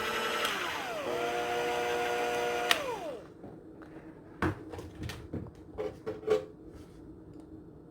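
Electric mixer motor running, dropping to a lower speed about half a second in, then switched off with a click about three seconds in and winding down. A few light knocks follow.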